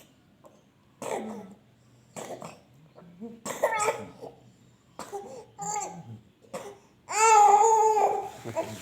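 Baby coughing and fussing in short bursts, then crying loudly from about seven seconds in.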